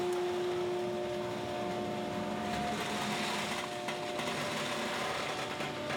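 Two-ram baler running with a steady mechanical hum and a faint whine as its ram compresses material into a bale.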